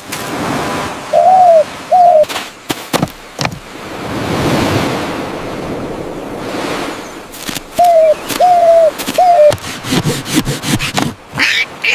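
Short, low cooing bird calls, each a brief rise and fall, twice near the start and three times later, over the wash of surf swelling and fading between them. A few sharp clicks are heard too.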